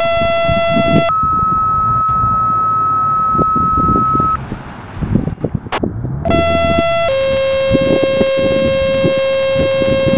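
Two-tone sequential radio page tones for fire/EMS dispatch, played twice: a short tone stepping up to a long higher tone held about three seconds, then a short tone stepping down to a long lower tone. They alert the ambulance crew just ahead of the voice dispatch.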